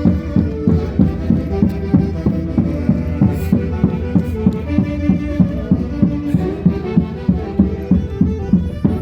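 Andean folk orchestra playing traditional Santiago music, with wind instruments and violin over a steady quick drumbeat of about three beats a second.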